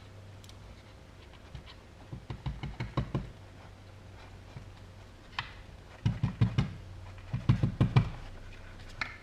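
Three bursts of quick knocks and taps from the opened plastic battery-charger housing being tapped and handled to let excess electrical contact cleaner run out.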